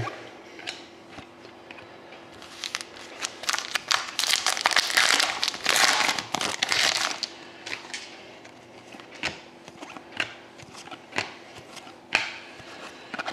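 Foil wrapper of a Panini Select hockey card pack crinkling as it is torn open by hand, loudest from a few seconds in to past the middle. Then come softer sounds of the cards being handled, with a few small clicks.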